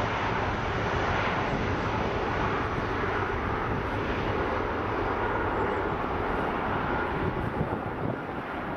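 Airbus A319 airliner's twin jet engines running at high power as it rolls away down the runway: a loud, steady jet noise with a faint steady whine in it.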